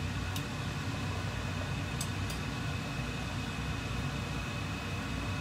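Metal kitchen tongs clicking lightly against a steel stockpot while turning a slab of pork belly in simmering water: one click about half a second in and two close together about two seconds in, over a steady low rumble and hiss.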